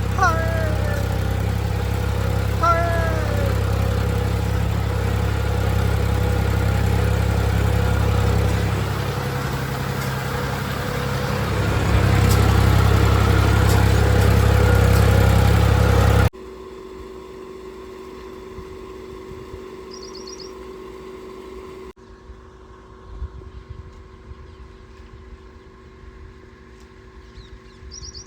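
Tractor engine running steadily, getting louder about twelve seconds in, then giving way abruptly to a much quieter background with a couple of short bird chirps.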